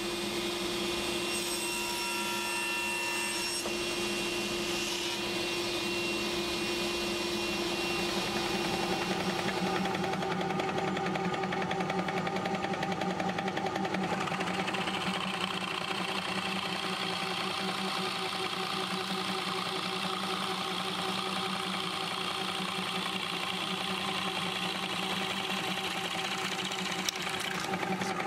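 Workshop power tools running steadily. About halfway through, a drill press bores a Forstner bit into a hardwood block.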